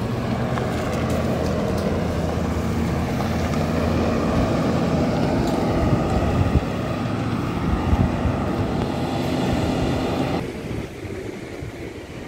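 Passing highway traffic: vehicle engines running close by with a low, steady drone and tyre noise, dropping off sharply about ten seconds in.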